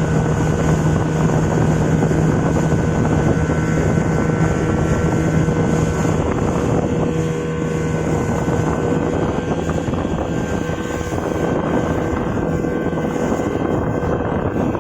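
Speedboat engine running steadily at speed, heard from aboard, with wind buffeting the microphone. The engine's low hum eases about six seconds in.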